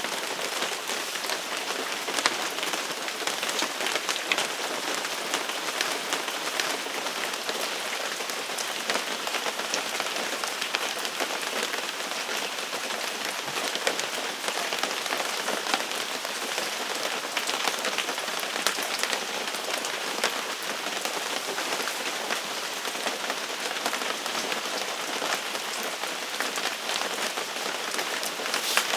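Steady rain falling on a surface, an even hiss full of small drop ticks.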